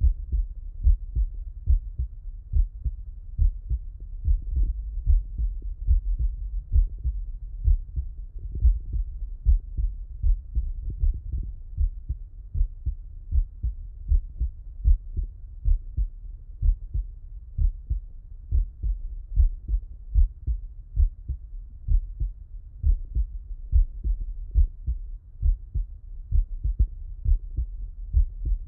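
A man's heartbeat heard through a Littmann stethoscope on the chest while he lies on his left side: a steady, slow rhythm of paired low thuds, lub-dub.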